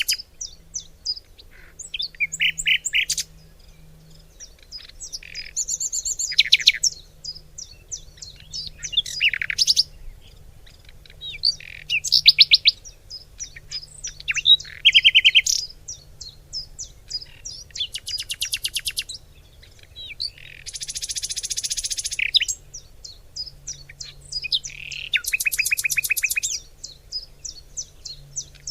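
Birds chirping and singing: a steady run of short high chirps, broken every few seconds by bouts of fast trilled song, with a denser, harsher phrase about twenty seconds in.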